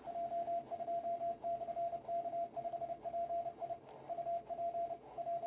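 Morse code (CW) from the Curacao DX station PJ2/K5PI, received on 21.020 MHz through a Yaesu FTDX101MP transceiver's speaker. It is a single tone of about 700 Hz keyed on and off in dots and dashes over faint band hiss.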